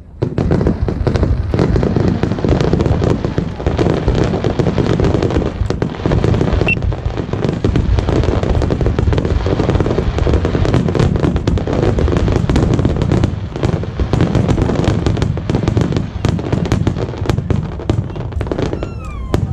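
Fireworks barrage: a dense, unbroken run of rapid bangs and crackling with a deep rumble under it.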